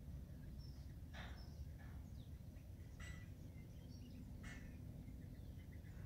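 Faint outdoor ambience: a low, steady rumble with a few short bird chirps now and then.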